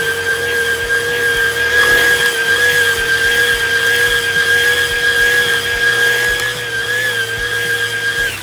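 RC car's electric motor and drivetrain whining at a steady high pitch under full throttle while its tyres spin in a burnout on asphalt. The whine cuts off suddenly near the end.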